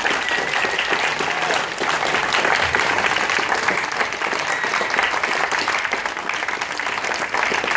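Audience applauding: steady, dense clapping from a large seated crowd.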